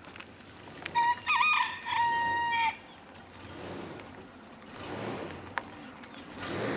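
A rooster crowing once about a second in: a short broken opening, then a long held final note. Later, a low rushing noise swells and fades twice.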